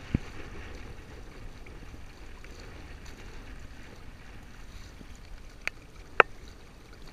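Water washing along the hull of a sailing kayak with outrigger amas, sailing upwind through choppy water. Three sharp knocks cut through it, the loudest about six seconds in.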